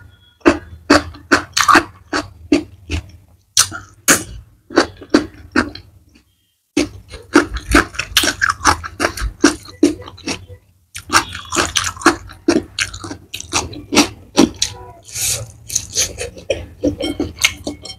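Close-miked chewing, crisp and crunchy at first from a bite of raw cucumber, at about two to three chews a second. The chewing stops twice, briefly, about six and eleven seconds in.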